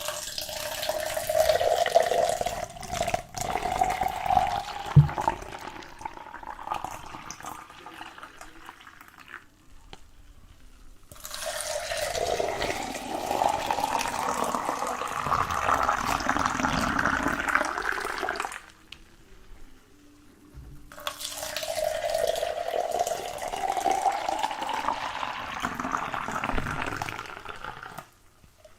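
Water running into a container in three spells of several seconds each, with short pauses between; in each spell the pitch rises as the container fills.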